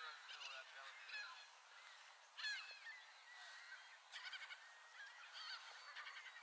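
Gulls calling, overlapping squawks and quick runs of repeated notes, with the loudest call about two and a half seconds in.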